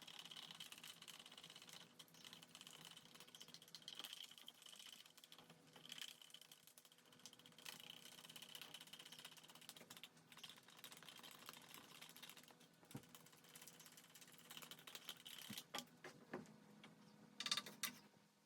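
Faint, irregular small clicks and scrapes from handwork with the epoxy mixing cups and stirring tools, with a few louder clicks near the end.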